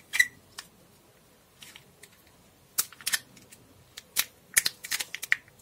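Small plastic clicks and taps, scattered and irregular, from a set of white wired earphones and their coiled cable being handled in the fingers, with a quick run of clicks near the end.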